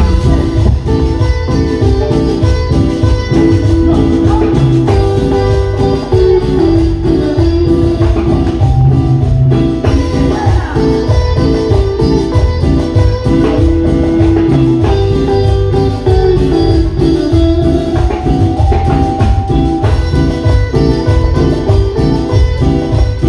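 A live Latin tropical dance band playing loudly: electric guitars and bass over congas and other percussion, with a steady dance beat.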